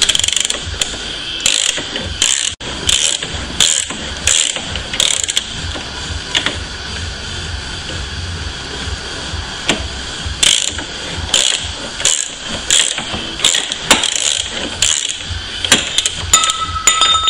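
Ratcheting exhaust pipe cutter clicking in repeated bursts as its handle is worked back and forth, the cutter cutting around an exhaust pipe. The clicking pauses for a few seconds midway, then resumes.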